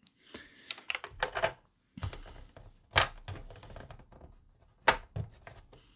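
Small hard plastic figure accessories and their packaging being handled: a handful of sharp clicks and knocks, the loudest about 3 and 5 seconds in, with a brief rustle of packaging about 2 seconds in.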